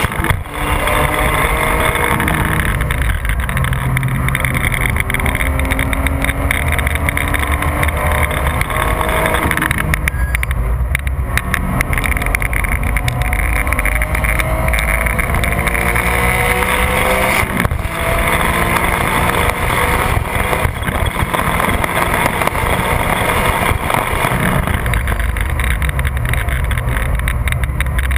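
Porsche 996 GT3's 3.6-litre flat-six at high revs under hard acceleration on a racetrack, rising in pitch several times as it pulls through the gears, with wind and road noise, heard from inside the cabin.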